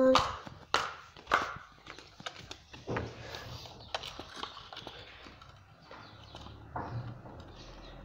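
A small plastic tub topped with a bottle cap, pushed by hand across a tiled floor: scattered clicks, knocks and scrapes, the loudest three in the first second and a half.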